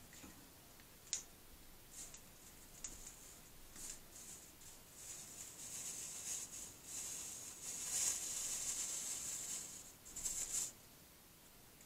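Soldering iron drawing a bead of molten solder along a stained-glass seam, the flux sizzling and crackling. A few scattered ticks at first, then a steady high hiss from about five seconds in that stops shortly before the end.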